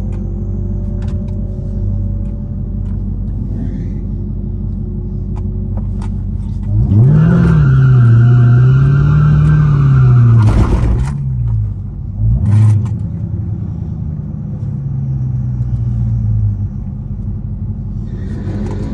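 A car engine rumbling at idle, then from about seven seconds in revving hard for about four seconds, its pitch rising, dipping and rising again. A short blip follows near twelve seconds, then a few seconds of steadier running before it settles back to the idle rumble.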